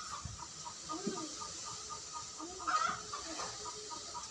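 Chickens clucking in the background: a steady, evenly spaced run of short clucks, with a louder call about three seconds in.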